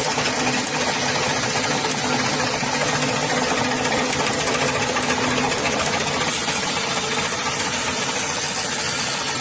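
Used-tyre splitting and bead-wire separating machine running steadily, a continuous mechanical clatter with a faint hum under it that fades out about halfway through.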